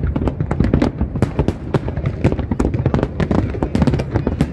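Aerial fireworks display: a dense, unbroken barrage of shells bursting, many sharp bangs and crackles a second over deep booms.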